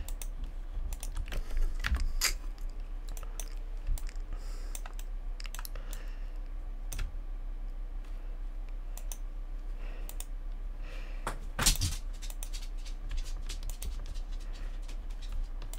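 Irregular clicks of a computer keyboard and mouse, with a short flurry about three quarters of the way through, over a faint steady low hum.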